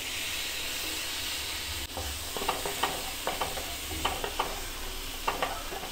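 Chopped onions sizzling as they hit hot butter in a frying pan, a steady hiss that starts at once. From about two seconds in, a wooden spatula scrapes and stirs them.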